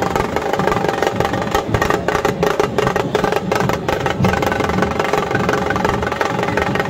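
Dhol-tasha pathak drumming: dhol barrel drums beaten with sticks alongside sharp, rapid strokes, played continuously. The strokes come thickest from about one and a half to four seconds in.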